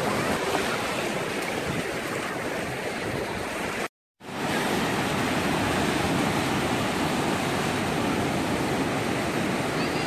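Sea surf washing onto a sandy beach, a steady rushing noise. It cuts out completely for a moment about four seconds in, then carries on.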